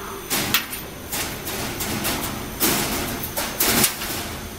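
Handling noise from a cut steel sheet and a caliper: a few short scraping, rustling knocks, one near the start and two close together about two-thirds of the way through.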